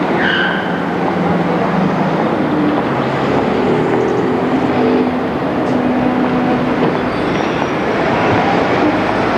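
Street traffic with a Linz tram moving past: a steady rumble with shifting low motor hums. A short high squeal comes just after the start.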